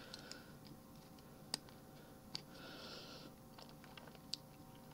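Faint clicks and rubbing of a small plastic toy hand accessory being handled and folded into its gun form in the fingers, with three sharp clicks spread through and a soft rub about halfway.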